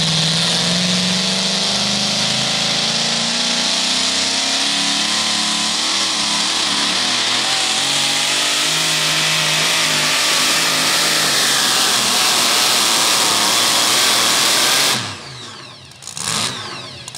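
Supercharged V8 of a super modified two-wheel-drive pulling truck at full throttle, dragging the weight sled. The engine note climbs over the first couple of seconds, then holds high and steady until the throttle is shut off about 15 seconds in and the engine noise drops away.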